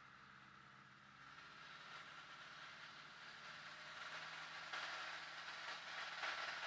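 Piper PA-11 Cub's engine at takeoff power with a rushing noise, heard faintly from inside the cockpit. The noise grows steadily louder as the aircraft accelerates along a grass runway on its takeoff roll.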